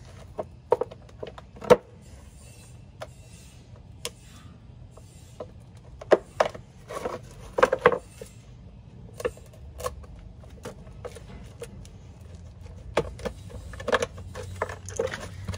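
Sharp box cutter slicing and scraping through a mud flap to notch out its slot, in short irregular cuts with scattered clicks and knocks as the flap is handled.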